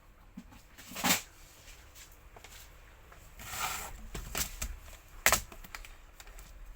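Sharp clicks and rustling of small electrical parts and wires being handled while terminal connections are made, with two louder clicks, one about a second in and one about five seconds in, and a brief rustle in between.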